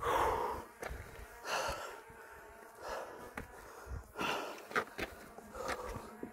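A man's heavy breathing close to the microphone, about five loud breaths roughly a second and a half apart: he is winded from a steep uphill hike.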